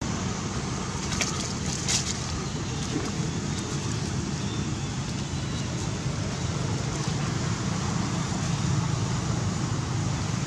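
Steady low background rumble, with a few faint ticks about one to two seconds in.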